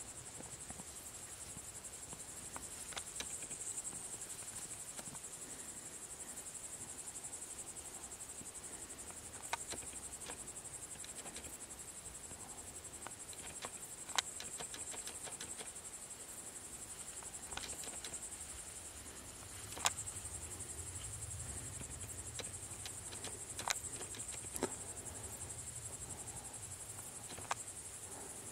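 Steady high-pitched chirring of crickets in a meadow, with a few sharp clicks and snaps scattered through it.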